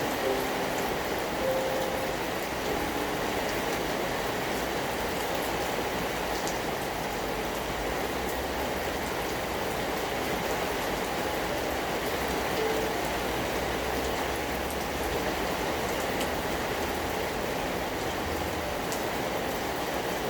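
Steady rain falling: an even hiss with a few faint scattered drop ticks.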